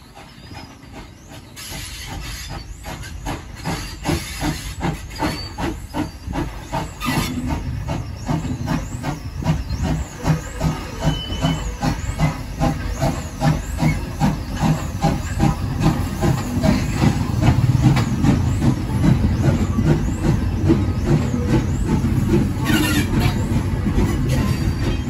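Morehead & North Fork No. 12, an 0-6-0 steam locomotive, working past with a freight train: steady rhythmic exhaust chuffs and steam hiss, growing louder as it draws near.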